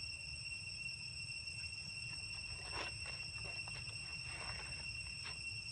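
Steady high-pitched insect drone, like crickets or cicadas, over a low rumbling background, with a few faint rustles and taps about three, four and a half and five seconds in.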